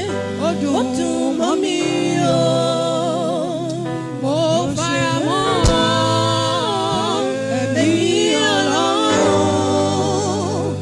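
Gospel worship music: singing voices holding long, wavering notes with vibrato over a steady low accompaniment.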